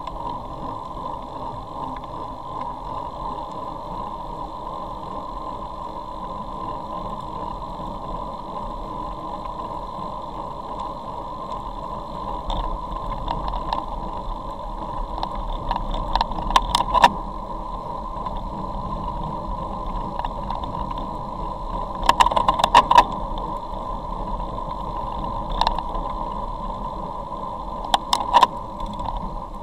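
Steady rush of wind and wet-road tyre noise picked up by a camera mounted on a road bike in motion. Clusters of sharp rattles and knocks come a little past halfway, again around three-quarters of the way through, and near the end.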